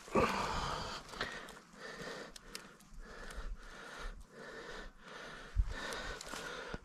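A person breathing hard and fast close to the microphone, a quick run of breaths with short breaks between them.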